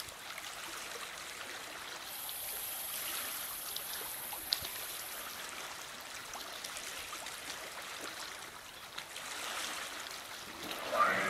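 Steady trickling and lapping of sea water along the rocky shoreline. Right at the end a louder sound starts, falling in pitch.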